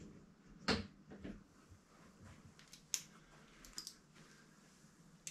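A few small clicks and knocks from tools and bike parts being handled, the loudest about a second in.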